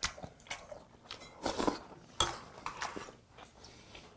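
Metal spoon and chopsticks clinking lightly against ceramic bowls and plates in scattered short clicks, with a few soft chewing noises between them.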